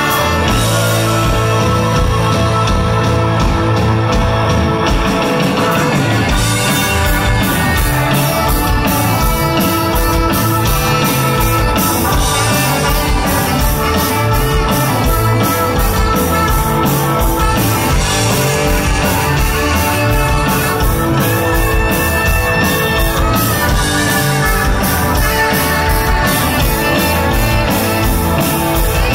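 Live rock band playing electric guitar, bass, drums and keyboards, loud and steady. A chord is held for the first few seconds, then the full band comes in with a regular drum beat.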